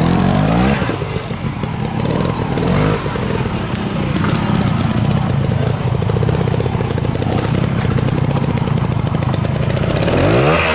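Classic trial motorcycle engine running at low revs as the bike picks its way over a rough wooded section. The throttle is blipped, rising in pitch just after the start and again near the end.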